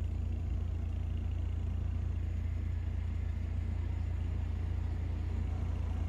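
Steady low rumble of a small car being driven, road and engine noise heard from inside the cabin.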